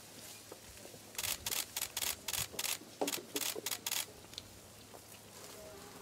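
A rapid run of camera shutter clicks, about four a second, lasting roughly three seconds from about a second in.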